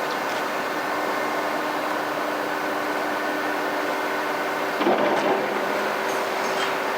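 Excavator diesel engine running steadily with a constant hum. About five seconds in comes a brief surge with a rising whine, followed by a few sharp metallic clanks.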